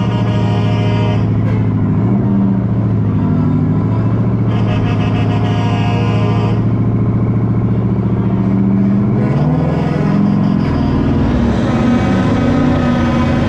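Heavy diesel truck engine running steadily at low speed, heard from inside a truck cab. About ten seconds in the engine note wavers and climbs as the trucks accelerate, and the leading truck's stacks blow black smoke.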